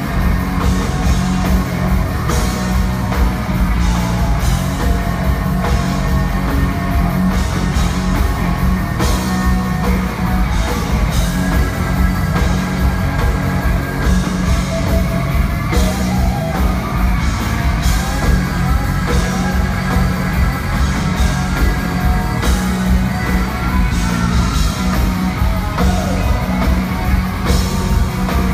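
Hard rock band playing live and loud: electric guitars through Marshall amplifier stacks over a drum kit, a steady beat with no break.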